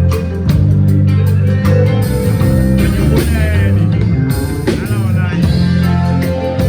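Band music: a loud bass guitar line of held low notes over regular drum hits, with a voice singing briefly in the middle.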